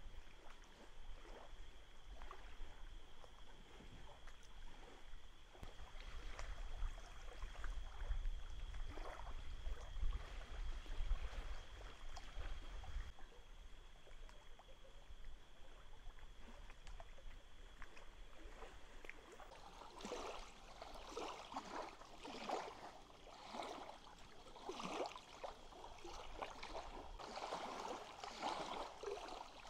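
Small waves lapping and splashing irregularly against the lake shore, coming in about two-thirds of the way through. Before that there is only a low rumble and a steady high tone.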